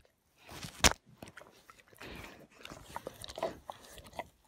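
Dog licking itself: a run of soft, irregular wet smacks and clicks, with one sharper click just under a second in.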